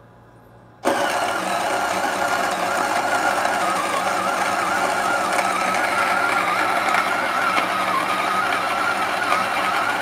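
Xbloom coffee machine's built-in grinder starting up about a second in and running steadily as it grinds a 15-gram dose of coffee.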